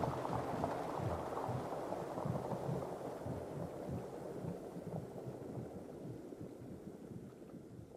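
A low, rumbling wash of noise with an uneven soft throb underneath, like wind or distant surf, fading steadily away as the soundtrack ends.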